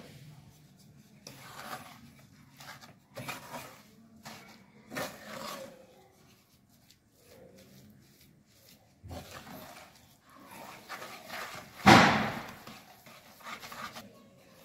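Flat spatula stirring and scraping a moist, crumbly gram-flour and sugar-syrup mixture around a non-stick kadhai, in separate strokes every second or so. One much louder knock or scrape against the pan comes about twelve seconds in.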